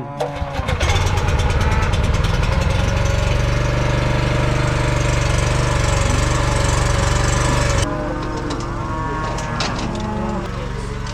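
Small gasoline engine on the pump starting up and running steadily at speed, then dropping to a lower, quieter speed about eight seconds in. Calves bawl over the last few seconds.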